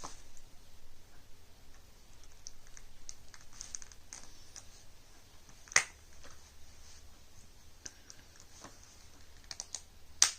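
Plastic key fob casing being handled and pressed back together: faint scattered small clicks and taps, with two sharp snaps, one about six seconds in and a louder one near the end as the halves click into place.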